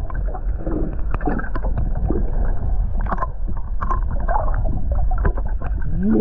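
Open-water noise aboard a drifting fishing boat: a steady low rumble with scattered small knocks and clicks against the boat.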